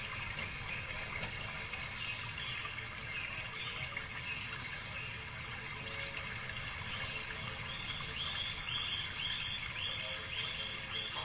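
A small caged songbird giving a run of short, repeated chirps, about two or three a second, strongest in the last few seconds, over a steady background hiss.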